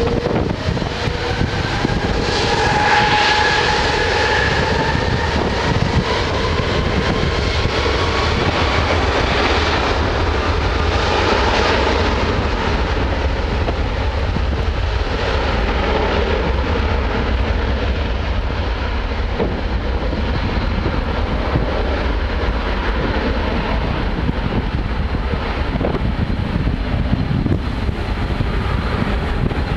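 Airbus A330 jet engines running at high power as the airliner rolls down the runway, with a whine that rises slowly in pitch over the first ten seconds or so. Strong wind rumbles on the microphone throughout.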